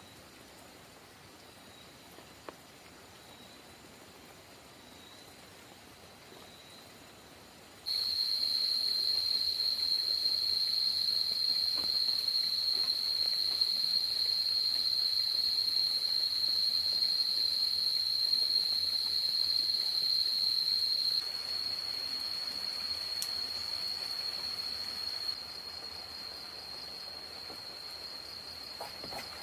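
Insects trilling in one steady, high-pitched note over a soft hiss. It jumps suddenly louder about a quarter of the way in, then drops back in two steps.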